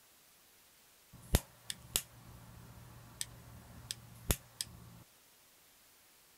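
Seven sharp clicks and taps, two of them much louder, from small electrical parts being handled and fitted on a wooden base. Under them a low steady hum starts about a second in and cuts off abruptly near the end.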